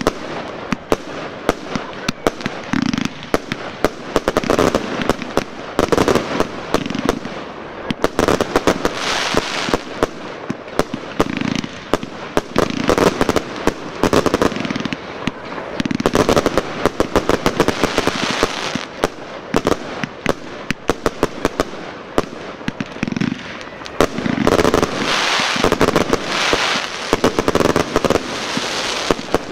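Fireworks going off in a continuous rapid barrage of bangs, with denser stretches of crackling bursts.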